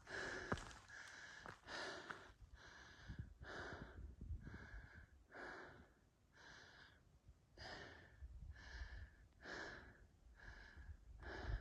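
A hiker breathing hard and rhythmically while climbing a steep mountain trail, about one breath a second.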